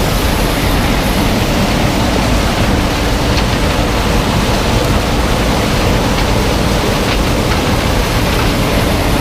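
New Holland combine running steadily while harvesting corn: a constant, loud mechanical noise with a low rumble and a faint steady hum.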